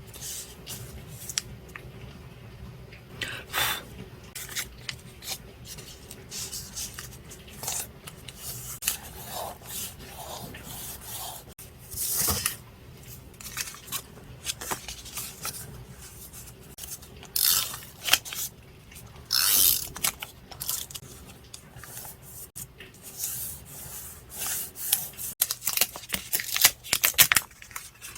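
Scissors snipping paper, with paper rustling, rubbing and tearing between cuts, and a quick run of snips near the end.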